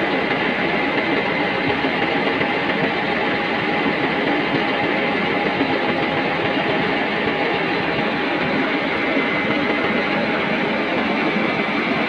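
Engine running steadily at idle: a dense, even drone with a faint steady whine.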